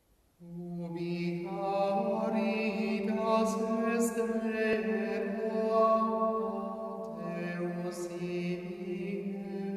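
Intro music of slow chanted singing with long held notes, starting about half a second in.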